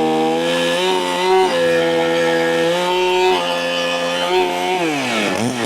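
Big two-stroke chainsaw, a Holzfforma clone, running at high revs while cutting wood, its pitch holding and shifting as the load changes, then blipped up and down several times in quick succession near the end.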